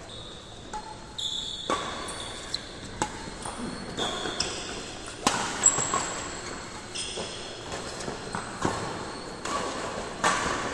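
Badminton doubles rally: rackets striking the shuttlecock in a string of sharp cracks, roughly a hit every half second to second. Short high squeaks, likely shoes on the court mat, come between some of the hits.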